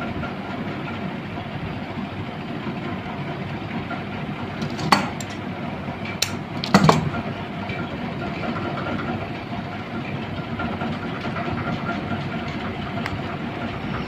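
Steady mechanical hum in the background, with a few sharp clicks and ticks about five and seven seconds in as hands handle the wire leads on a fan motor's stator.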